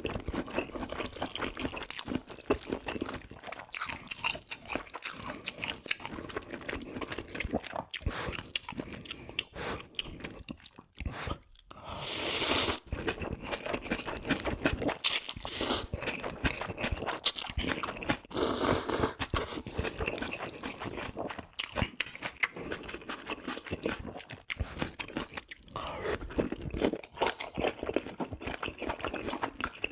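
Close-miked eating: steady chewing and crunching of food, with two longer noisy sounds of about a second each, around twelve and eighteen seconds in.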